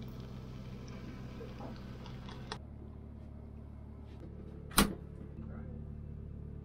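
A steady low hum, with one sharp knock about five seconds in.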